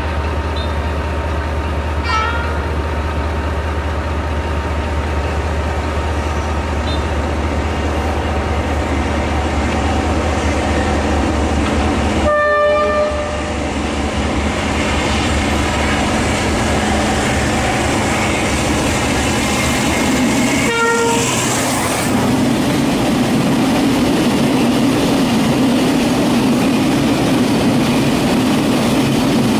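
Diesel locomotive engine running steadily, with three short horn toots: one about two seconds in, one near the middle and one about two-thirds through. In the last quarter the locomotive's rumble grows louder.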